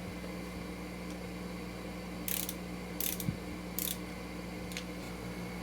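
Ratchet torque wrench tightening engine cover bolts: three short bursts of ratcheting a little over two, three and nearly four seconds in, over a steady low hum.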